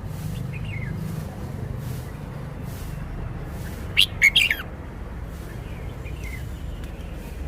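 Red-whiskered bulbul singing: one short, loud burst of quick whistled notes about four seconds in, with faint single calls before and after. A steady low hum runs underneath.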